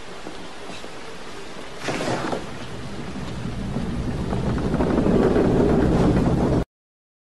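Steady rain hiss, a sudden noisier sound about two seconds in, then a deep rumble of thunder swelling louder until the sound cuts off abruptly near the end.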